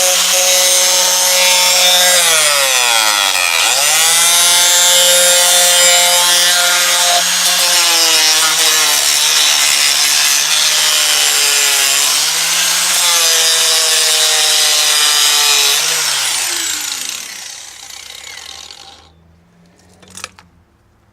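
Handheld power tool cutting into a laptop's casing, a harsh grinding, sawing noise over a motor hum that bogs down and picks up again several times under load. The tool winds down and stops about three-quarters of the way through, followed by a single sharp knock.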